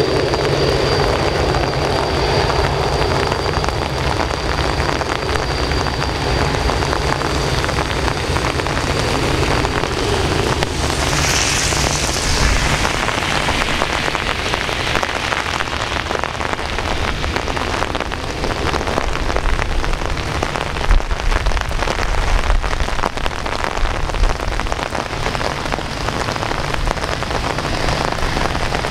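Steady rain, with a Boeing 787-8 jet airliner taxiing slowly at low engine power underneath it. A thin, high, steady whine holds for about the first third, and a few low thumps come past the middle.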